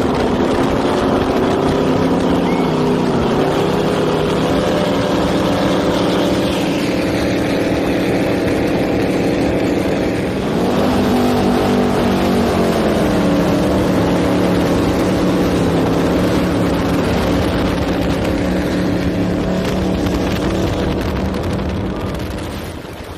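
Powerboat engines running hard at speed, heard from on board over the rush of wind and water against the hull. About ten seconds in the engine note dips and then climbs again, and the sound fades out near the end.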